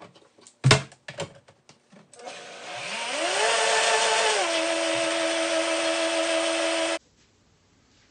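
A few clunks as the blender jar is handled on its base, the loudest about a second in. Then a countertop blender motor starts, its pitch rising quickly to full speed, as it blends hot coffee with ghee, MCT oil and cacao. It settles to a slightly lower steady pitch and cuts off suddenly about seven seconds in.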